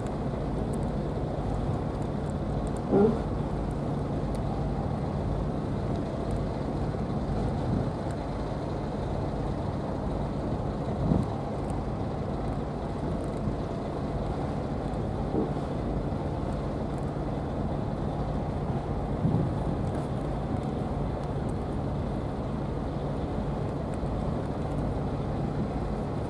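An engine running steadily at idle, a constant low hum, with a few brief faint sounds over it.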